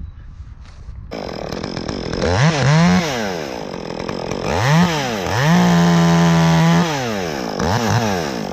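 Chainsaw revving, coming in about a second in: its pitch rises and falls in several quick revs, then it holds at full throttle for over a second before dropping and revving once more near the end.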